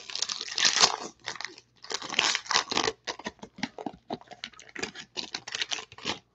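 A black plastic card pouch being torn open and crumpled by hand: an irregular run of crinkles and rips with short pauses.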